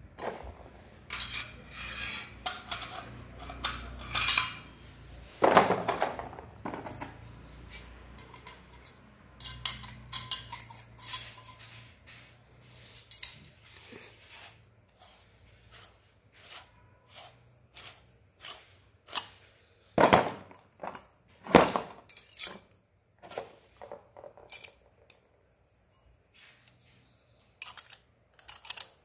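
Stainless steel kitchen press and its metal die discs being handled, metal knocking against metal in irregular clicks and knocks. The loudest knocks come about five, twenty and twenty-one seconds in.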